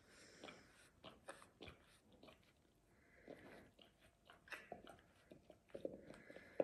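Alaskan Malamute gnawing on a meat-filled chew bone: faint, irregular crunching and clicking of teeth on the bone.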